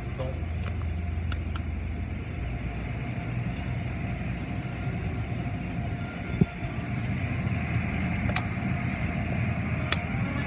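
Automatic car wash tunnel machinery running with a steady rumble and hiss. There is a single sharp thump about six seconds in and a few sharp clicks near the end.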